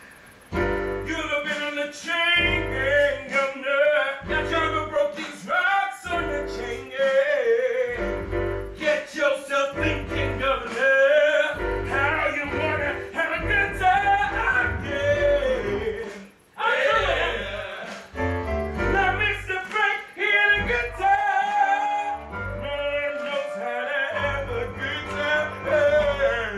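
A male voice singing a song from a stage musical, over instrumental accompaniment with a pulsing bass beat.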